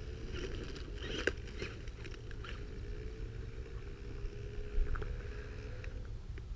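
Small electric motor of a homemade RC crawler weed cutter whining, its pitch slowly rising, with scattered faint crackles and clicks from the brush it is cutting through.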